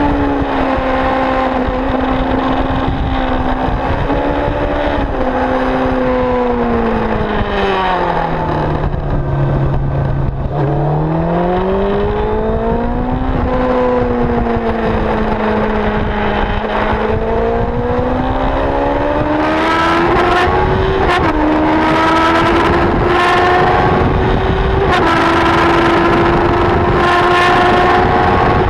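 Track-day motorcycle engine recorded onboard at speed, over steady wind noise. A third of the way in the engine note falls for a few seconds as the bike slows, then climbs again; in the second half it rises with small steps in pitch at each upshift.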